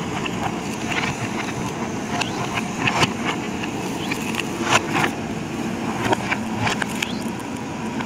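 A JCB 3DX backhoe loader's diesel engine runs under load while the bucket tears out bamboo clumps. Over the engine come repeated sharp cracks and knocks of bamboo stems and roots breaking and the bucket scraping through them.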